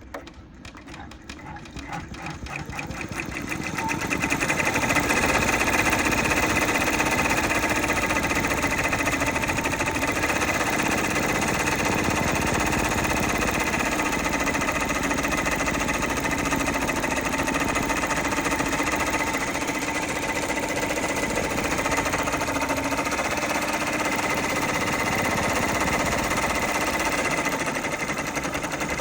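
Embroidery machine stitching out a design. It starts with separate needle strokes that speed up over the first four seconds or so, then runs at a steady fast stitch.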